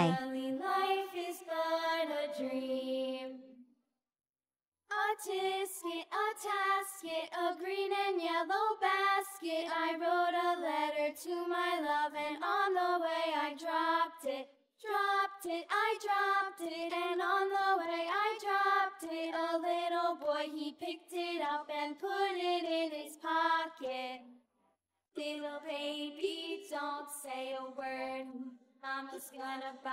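A high, child-like voice singing a simple nursery-rhyme tune with little or no accompaniment, with a few short pauses between phrases.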